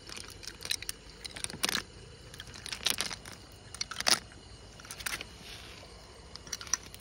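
Wet river pebbles clicking and crunching, with the rustle of a fishing net as it is handled and dragged over the stones. Several sharp knocks come about a second apart.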